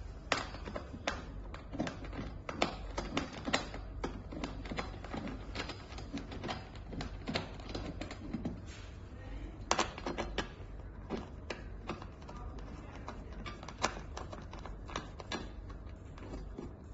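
Dining chair being assembled: irregular light clicks and taps of metal frame parts, bolts and tools being handled, with a few sharper knocks, over a steady low hum.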